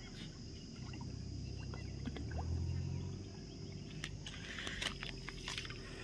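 Lake water sloshing and splashing around a person wading in, with a brief burst of splashing about four and a half seconds in.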